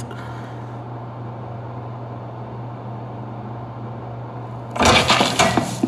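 Steady low electrical hum of room tone. About five seconds in, a loud, brief burst of noise breaks in, lasting about a second.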